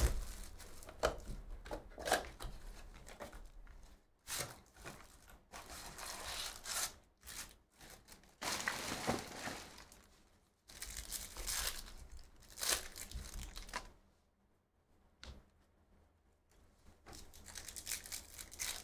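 A cardboard card box and its foil card packs being torn open by hand: irregular ripping and crinkling of wrapper, with a short lull about three-quarters of the way through.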